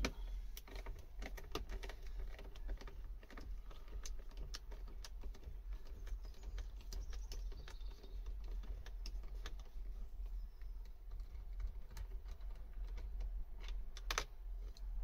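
Hand ratchet clicking in quick, irregular runs as the small screw at the top of a car door trim panel is turned out, with a louder knock near the end and a steady low rumble underneath.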